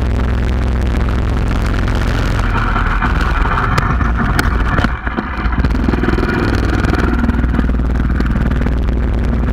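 Small mini bike engine running steadily at speed, heard from a camera riding on the bike. About five seconds in the sound briefly drops away, then picks up again.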